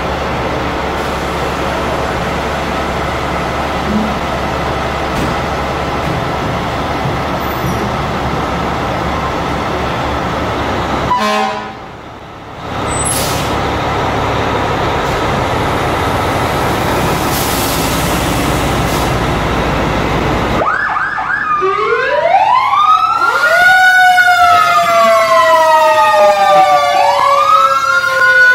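Fire trucks' diesel engines running in the station bay. Near the end, sirens start up: several wailing tones rise and fall over one another, growing louder.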